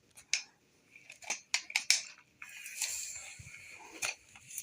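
Husky tripod work light's telescoping stand being extended: a run of sharp metal clicks, then about two seconds of sliding, scraping metal with another click near the end.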